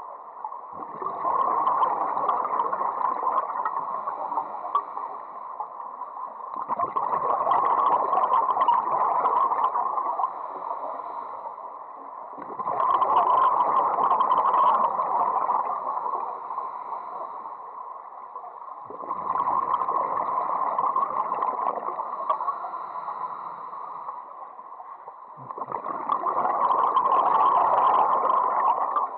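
Underwater scuba breathing through a regulator: a long bubbling exhalation about every six seconds, five in all, with quieter inhalations between.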